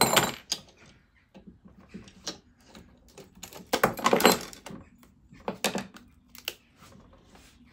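Small metal clamp being unscrewed and taken off a snowboard's rail, then the plastic pressure plate lifted from the epoxy repair: scattered clicks, scrapes and knocks of metal and plastic, loudest about four seconds in.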